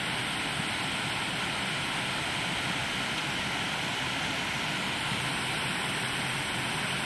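Steady rushing of a small waterfall cascading over rocks into the lake.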